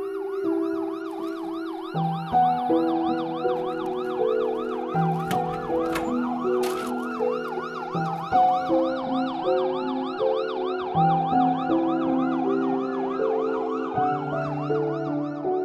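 Ambulance siren in a fast yelp, its pitch rising and falling about three times a second, over background music of slow held chords.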